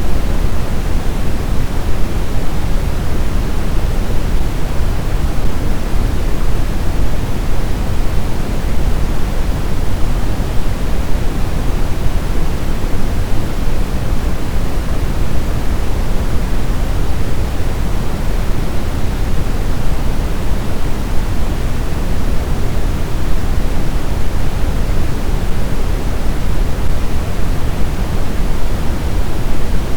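Steady sleep noise: an unchanging rushing hiss, heaviest in the low end, with no breaks or events.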